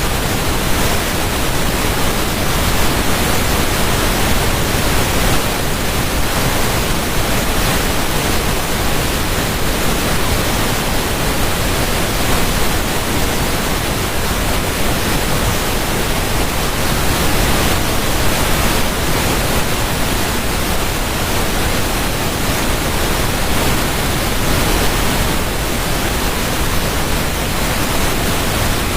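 Steady rushing water: a dense, even hiss with no separate splashes or drips, holding the same level throughout.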